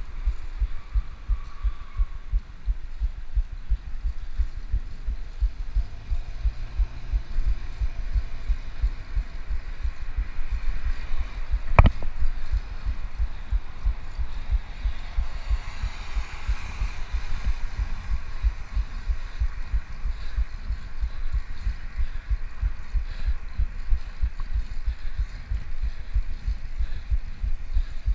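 Wind buffeting the microphone of a bike-mounted action camera while the pedal bike rides along at speed, giving an irregular low rumble. A single sharp knock comes about twelve seconds in, and a car passes close alongside a few seconds later.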